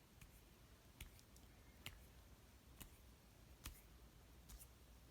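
Near silence with faint, sharp clicks at a fairly regular pace, about one a second.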